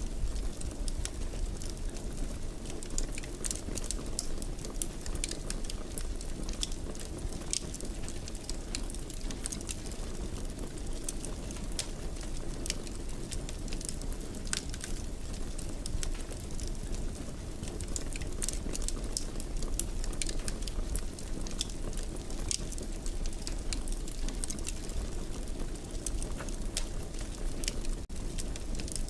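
Wood fire burning steadily in a fireplace, with a low rumble of flame and frequent sharp, irregular crackles and pops.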